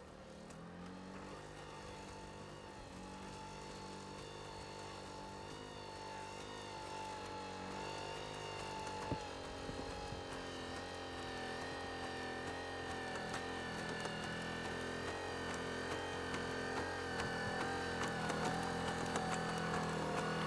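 Engine of the Boston Dynamics LS3 four-legged robot running with a steady drone of several tones, growing gradually louder. A single sharp click about nine seconds in.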